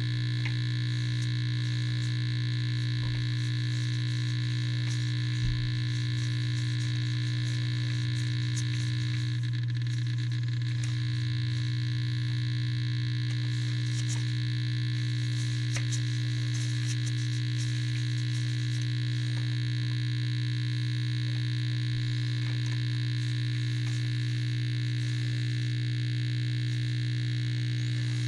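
Sharp SG-618 surface grinder running, its electric motors giving a steady hum with a high whine above it. A few faint light clicks come now and then, and a soft thump about five seconds in.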